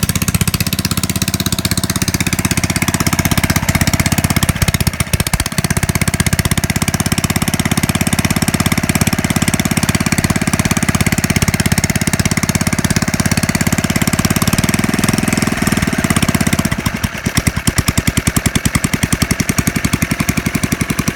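Engine of a 1.7 kW portable generator fitted with an AVR voltage regulator, running steadily with a fast, even putter. The sound thins and dips briefly about 17 seconds in, then carries on.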